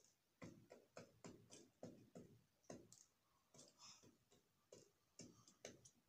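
Faint, irregular tapping from ringneck doves pecking at seed on a wooden aviary floor, about two to three short taps a second.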